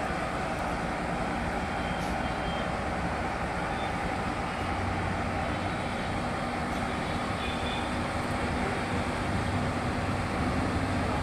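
ACE AF100D 10-ton diesel forklift's engine running steadily as the forklift drives, a low hum growing slightly louder near the end.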